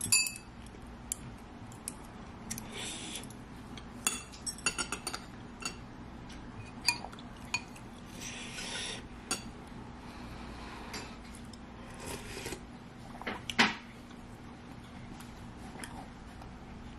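Metal spoon and chopsticks clinking and scraping against a ceramic bowl while eating: scattered light clinks, with one sharper clink about three quarters of the way through.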